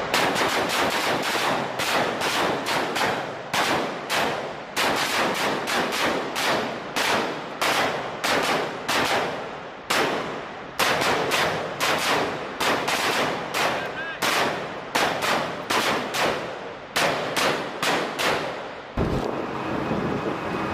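Small-arms fire from several shooters with pistols and rifles: repeated single shots, about three a second and sometimes overlapping. Near the end the shooting stops and a steady low rumble takes over.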